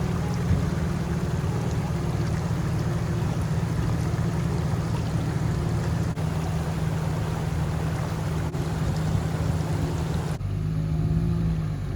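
Four-wheel-drive vehicle on the move: a steady low engine drone under a rushing noise. About ten seconds in the rushing noise cuts off and background music with held notes comes in.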